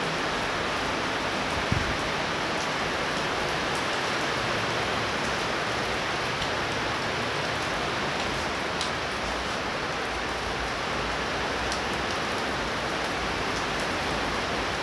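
Heavy rain pouring steadily, a dense even hiss of drops on the ground and puddles, with one brief thump about two seconds in.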